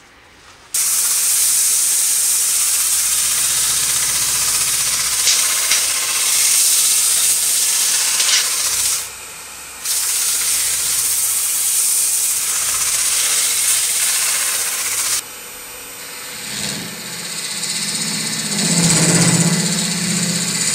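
Large plane-wood bowl spinning on a wood lathe with its surface being worked, giving a loud steady hiss that cuts off abruptly twice. Near the end, a turning tool cutting into the centre of the spinning face gives a lower-pitched scraping.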